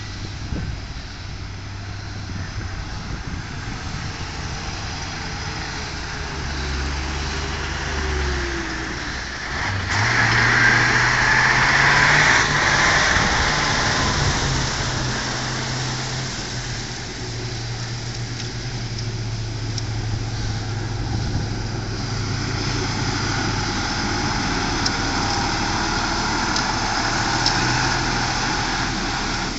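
Engine of a heavy six-wheeled army truck running under load as it drives through deep floodwater, with a louder rush of splashing water from about ten seconds in; the engine grows louder as the truck nears.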